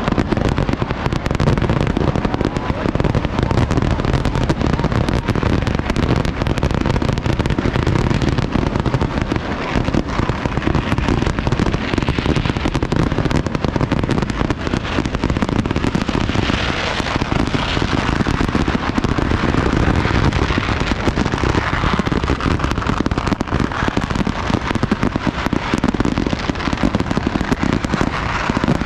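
A continuous barrage of firework explosions at a Kerala temple fireworks display (vedikkettu). The blasts come so thick and fast that they merge into one dense, unbroken roll.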